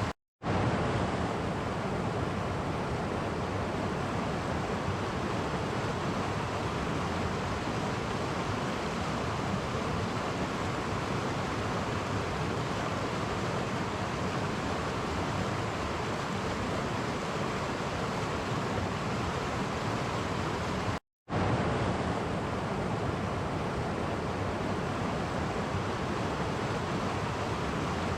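Clear shallow stream flowing over small cascades, a steady rushing splash of water. The sound cuts out to silence for a split second twice, at the very start and about 21 seconds in.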